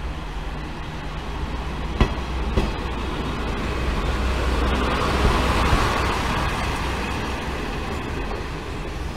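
Hisatsu Orange Railway single-car diesel railcar pulling out and passing close by: a steady low engine rumble, two sharp clacks about two seconds in, and the noise swelling to its loudest around five to six seconds as the car goes past, then easing as it moves away.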